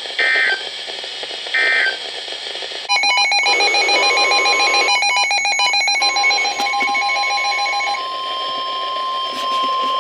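NOAA Weather Radio alert signals. Two short bursts of two-pitch digital data tones come first, the SAME end-of-message code. From about three seconds in there is rapid electronic beeping mixed with data tones, and from about six seconds the steady 1050 Hz warning alarm tone that comes before a new warning.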